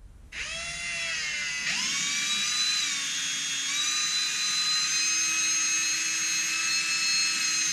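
Electric drill with a paddle mixer spinning up and stirring a gallon can of thick epoxy-like deck paint loaded with aggregate. The motor whine starts about a third of a second in, rises in pitch as the drill speeds up about two seconds in, then runs steadily.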